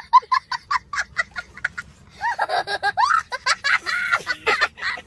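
A young boy laughing hard: a fast run of short, high-pitched laughs, then longer laughs that swoop up and down in pitch.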